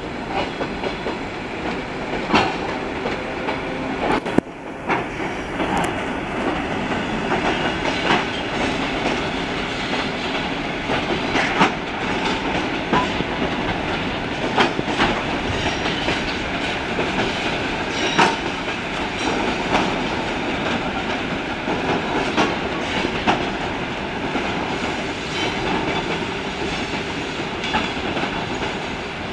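ER2T electric multiple unit rolling out of the station, a steady rolling rumble with sharp clacks of wheels over rail joints every few seconds. The sound breaks off briefly about four seconds in.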